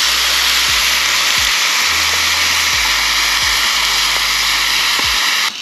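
Loud, steady hiss of sauce sizzling in a pot over a campfire, cutting off abruptly near the end. Background music with a low bass line plays underneath.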